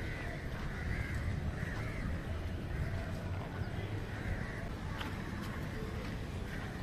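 Steady low outdoor background noise with a few faint bird calls in the first two seconds.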